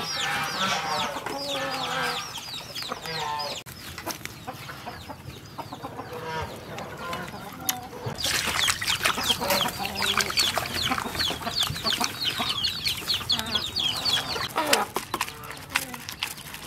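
Chickens clucking, with a long run of rapid, high, quick-falling calls in the middle of the stretch and scattered sharp knocks throughout.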